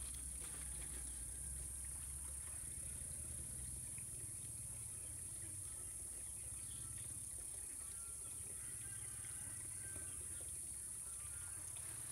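Steady high-pitched drone of insects, with a low rumble underneath and a few faint short chirps from about two-thirds of the way in.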